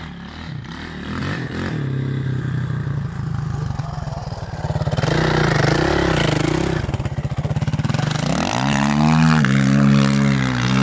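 Suzuki RM-Z 450 single-cylinder four-stroke dirt bike engine revving as the bike passes close by about halfway through, then revs rising and held as it drives through water, with splashing near the end.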